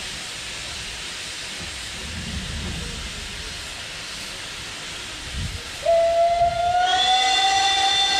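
Steady steam hissing from the narrow-gauge rack steam locomotive BFD 9 (class HG 3/4). About six seconds in, its steam whistle starts with a slight upward slide and holds one long, loud note.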